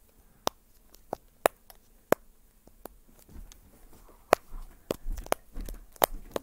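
Simple dimple fidget toy's silicone bubbles being pressed in, giving a series of sharp, unevenly spaced pops, about eight of them.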